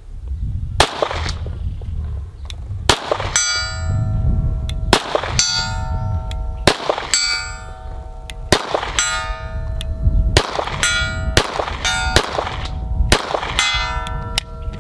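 Atlas Gunworks Erebus 2011 pistol firing slow aimed shots, about eight in all, at steel plates 100 yards away. Most shots are followed a moment later by the distant clang of a hit plate ringing on.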